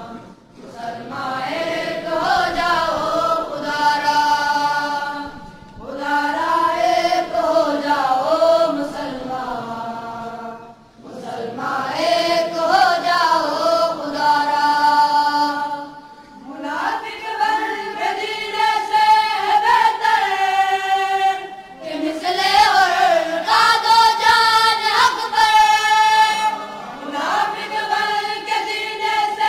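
Unaccompanied devotional chanting in the style of an Islamic nasheed, with no instruments. It is sung in long, melodic phrases of about five seconds each, separated by brief pauses.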